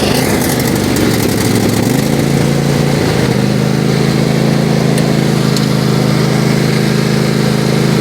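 Riding lawnmower engine running just after starting, its speed unsettled at first and then running evenly from about three seconds in.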